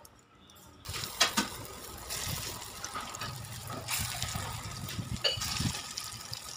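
Pakora batter sizzling and bubbling in hot oil in an iron kadai. The sizzle starts suddenly about a second in, with a short knock, and runs steadily after that.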